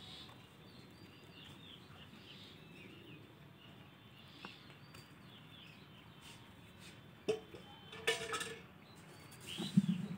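Faint, high bird chirps scattered over quiet background for the first six seconds or so. Near the end come a click, a rustle and a dull thump, the thump loudest, as the camera is moved about.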